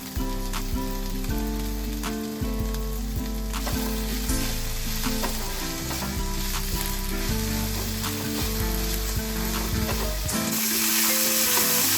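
Food sizzling as it fries in a pan, with a spatula tapping and scraping as it is stirred. The sizzle gets suddenly louder near the end.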